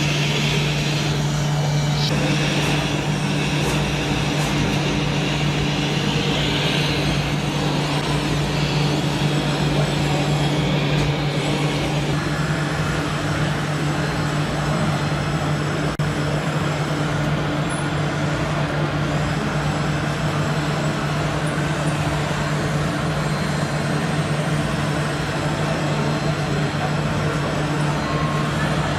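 RC model trucks running, with a steady truck-engine sound and a constant low hum.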